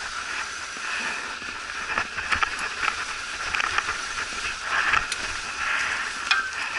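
Kona Wo fat bike being ridden over snow: the wide tyres roll through the snow with a steady noise, and scattered sharp clicks and knocks come from the bike jolting over bumps.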